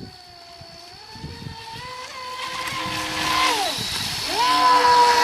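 Fei Lun FT011 RC racing boat's brushless motor whining as it runs. The whine climbs about a second in, drops away sharply about three and a half seconds in, then climbs back up and holds, loudest near the end.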